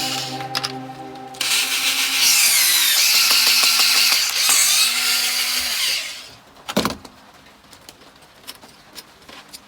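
A hand-held power tool runs for about four and a half seconds, its motor pitch dipping and then rising again. A single sharp knock follows.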